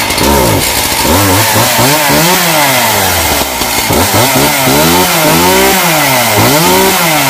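Two-stroke chainsaw engine on a test run, revved up and down over and over: about seven rises and falls in pitch as the throttle is blipped.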